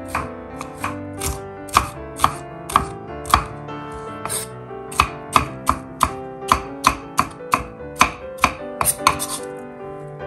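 Kitchen knife chopping bell pepper on a wooden chopping board: sharp knocks two to three times a second, coming quicker near the end.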